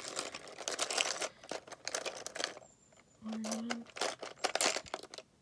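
Hand rummaging through a clear plastic box of Lego minifigures, the small plastic pieces clattering and rattling against each other and the box, in two bouts with a short pause between.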